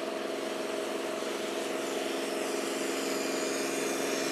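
A boat's engine running steadily, an even low drone that grows slightly louder.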